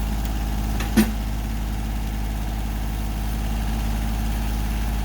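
Diesel tractor engine running steadily at idle, with one sharp clank about a second in.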